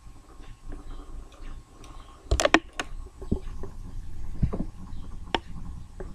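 Light clicks and taps of small makeup items and cases being handled and set down: a quick cluster of three sharp clicks a little over two seconds in, then single taps every second or so.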